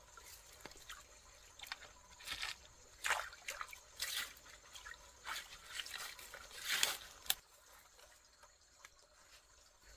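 Irregular short splashes and drips of water, which stop about seven and a half seconds in.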